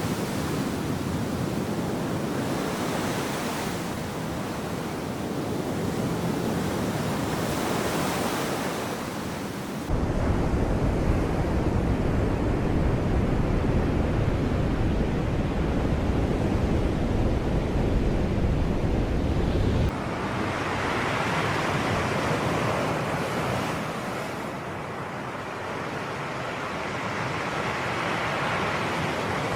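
Sea waves breaking and washing ashore: a continuous rushing surf that swells and eases every few seconds. About a third of the way through, a heavier low rumble cuts in abruptly and stops just as suddenly about two-thirds through.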